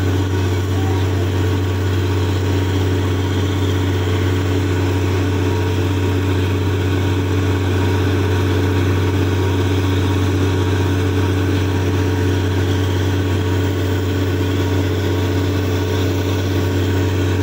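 Truck-mounted borewell drilling rig running steadily, its diesel engine giving a constant low hum.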